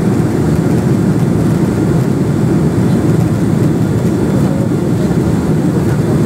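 Steady low roar of an airliner's jet engines and rushing air, heard inside the passenger cabin in flight shortly after take-off.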